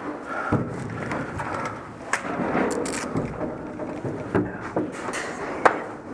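Rustling and shuffling close to the microphone, with a few short sharp clicks or knocks, the loudest one near the end.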